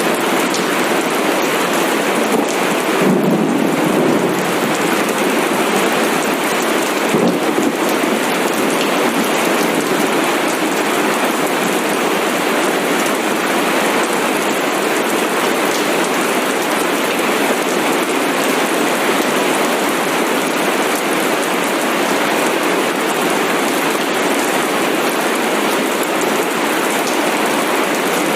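Steady rain falling, with low thunder rumbling about three seconds in and again about seven seconds in.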